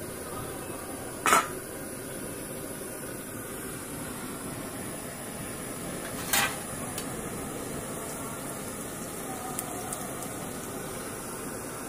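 Steady sizzling hiss of rolled dough frying in hot oil in a pan, with two sharp clinks of a utensil against the pan, about a second in and about six seconds in.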